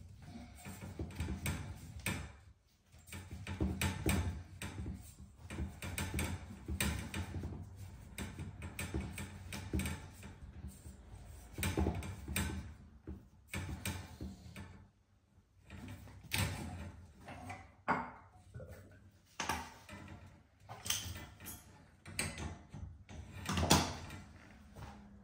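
Copper pipes being handled and fitted with pipe clips against a wall: irregular clicks, knocks and scraping, with short pauses and the loudest knock near the end.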